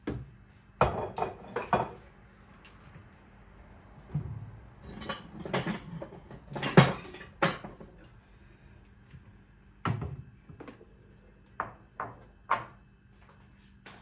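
Hard objects being handled and set down: groups of knocks and clinks, a few about a second in, a busier run in the middle, and several single knocks near the end, like dishes or utensils.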